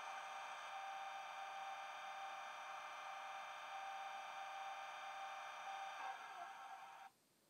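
Bachmann Class 37 model's DCC sound decoder playing the diesel engine idling through its small on-board speakers: a steady, thin hum of many held tones with no deep bass. It shifts about six seconds in and cuts off suddenly near the end.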